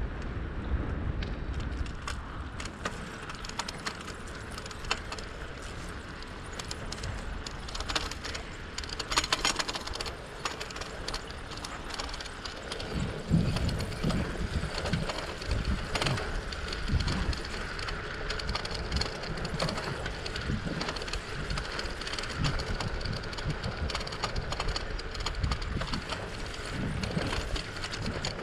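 Bicycle being ridden: steady tyre and riding noise with low wind rumble, and many scattered clicks and rattles from the bike.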